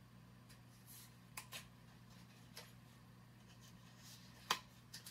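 A small pocket knife scratching and picking at the packaging of a boxed makeup palette: a few faint short scrapes and clicks, with a sharper click about four and a half seconds in.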